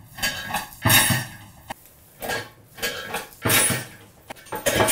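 Plastic toilet seat knocking and scraping against the ceramic toilet bowl in a series of short clatters as someone stuck to it struggles to stand up.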